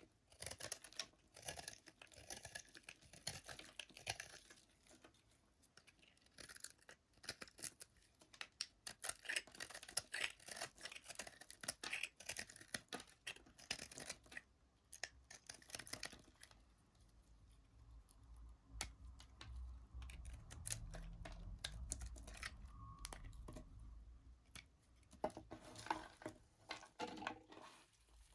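Bar soap being cut with a knife: crisp crackling and scratching as the blade goes through. Partway through, the crackles thin out under a low rumble, then pick up again near the end.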